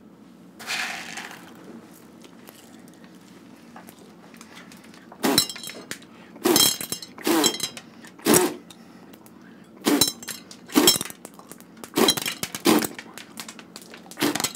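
A man coughing repeatedly, open-mouthed, over a popcorn machine: about ten short, loud coughs, some in pairs, starting about five seconds in. A brief rustle comes about a second in.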